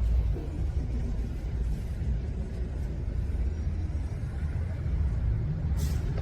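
Steady low rumble of downtown street background, with a brief hiss about six seconds in.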